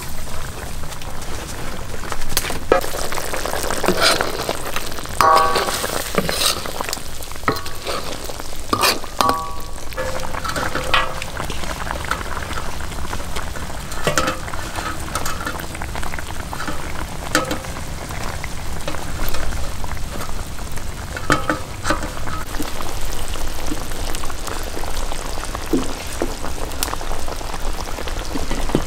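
Food sizzling and frying in a hot pan while being stirred, with the utensil clicking and scraping against the pan.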